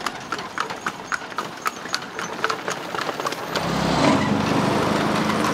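A quick, irregular run of hard clacking steps on stone paving. About three and a half seconds in, a motor vehicle's engine starts running close by and grows louder.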